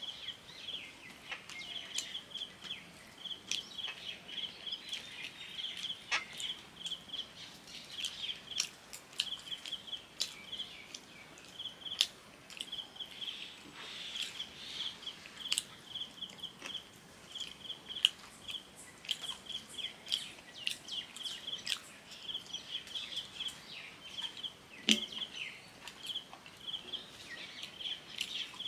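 Eating panta bhat by hand from a steel plate: fingers working the watery rice, chewing, and short clicks against the metal, a few of them sharper. Behind it, a steady high chirping repeats several times a second throughout.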